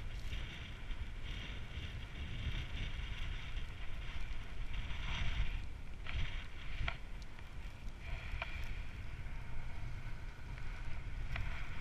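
Wind buffeting a GoPro's microphone as a steady low rumble, with a hiss of snow and a few short sharp scrapes of skis on snow as the camera wearer sets off down the slope.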